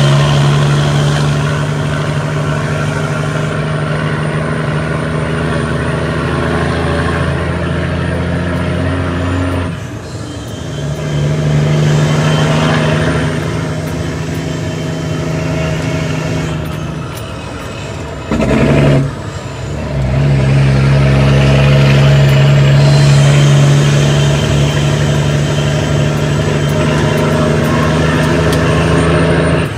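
International ProStar truck's ISX Cummins inline-six diesel engine running steadily under load. The engine note dips twice, about ten seconds in and again near twenty seconds, with a brief loud burst of noise just before the second dip.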